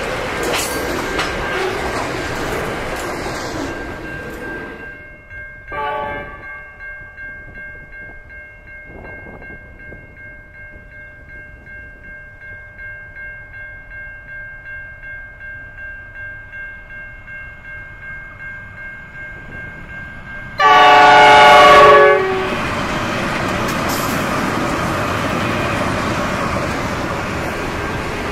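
Freight wagons rolling past on the rails, fading out about five seconds in; then a steady ringing with a regular gentle pulse while a train draws near. About twenty seconds in, an NR-class diesel-electric locomotive sounds one very loud horn blast of about a second and a half, and the locomotives and container wagons then rumble past.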